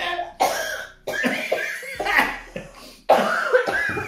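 Several people coughing in bouts mixed with laughter, their throats irritated by inhaled habanero pepper powder from a just-opened jar of habanero peanuts.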